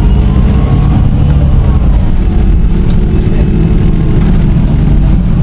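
Irisbus Citelis Line city bus engine idling close by: a loud, steady low rumble.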